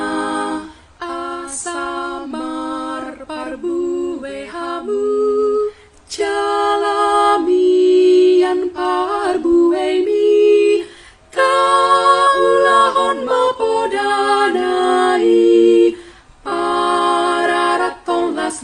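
A women's virtual choir singing a hymn in Batak a cappella. Held notes step up and down in phrases, with brief breaks between lines.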